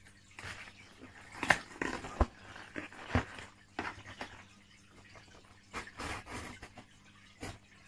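Cardboard shipping box being opened by hand: irregular rustles, crackles and scrapes of the cardboard flaps and packing tape, with the sharpest snaps about one and a half and three seconds in.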